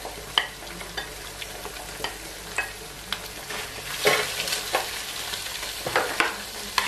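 Diced onion and carrot frying with egg in a non-stick frying pan, with a steady sizzle. Short scrapes and taps come from a wooden chopstick and spatula stirring the vegetables, the loudest about four and six seconds in.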